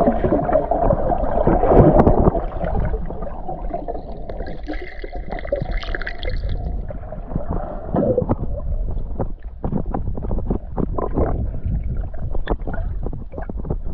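Water sloshing and gurgling close to the microphone while someone swims, with a run of quick splashy knocks in the second half.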